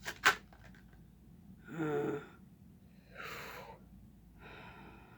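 Two sharp clicks, then a person's short voiced sigh and a long breath out, with a fainter breath near the end.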